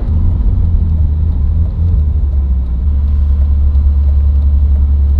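Ferrari 458 Spider's V8 engine running at low revs as the car drives slowly, a steady deep rumble.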